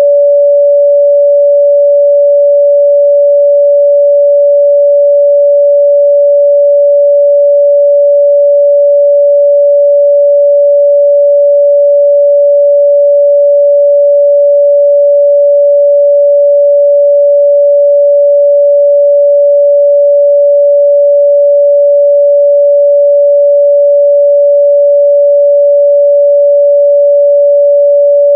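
Steady pure sine-wave test tone at 574 Hz, a single unwavering pitch held at constant loudness.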